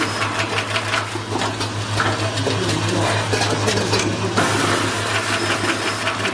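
Automatic wire terminal-crimping and housing-inserting machine running: a steady low hum under a rapid, irregular clicking and clatter of the mechanism and parts.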